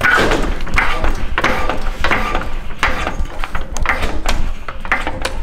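CAT 3-ton off-road floor jack being pumped by its long handle to lift a truck, with repeated metal clanks and creaks at each stroke.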